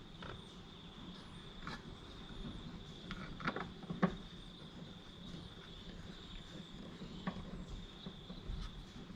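A few faint clicks and taps of plastic trim being handled and fitted on a car door, over a steady high-pitched insect chirring.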